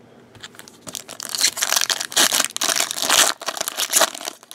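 A trading card pack wrapper being torn open and crinkled in the hands, a dense run of crackling from about a second in that dies down near the end.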